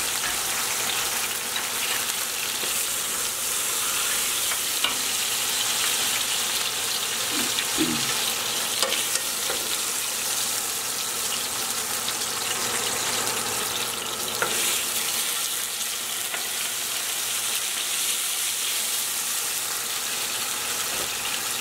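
Pork chops searing in a hot pan: a steady, even sizzle of frying, with a few faint clicks about five seconds in and again near the middle.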